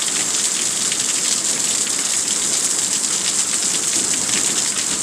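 Heavy storm rain falling hard and steadily, a dense patter of drops striking surfaces, hard enough that it sounds like hail.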